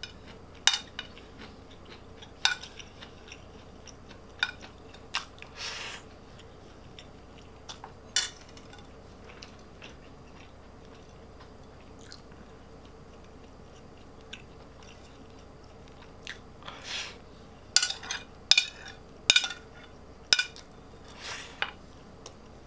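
Close-miked eating: a person chewing and biting fried food, with irregular clicks of utensils against a dish. The sounds are sparse in the middle and come thick and fast in the last few seconds.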